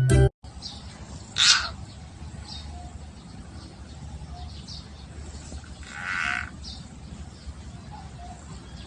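Two short animal calls about four and a half seconds apart, over a low steady background rumble.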